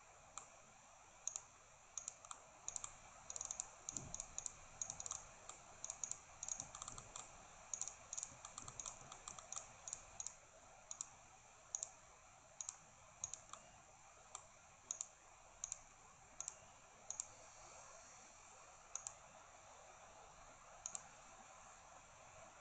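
Faint, irregular clicking of a computer mouse button as points are placed one after another, quick and dense for the first ten seconds or so and sparser after that.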